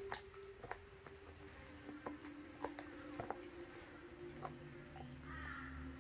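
Belgian Shepherd chewing a raw meaty bone: irregular sharp crunches and cracks as its teeth work the bone, several over a few seconds. A steady low hum runs underneath.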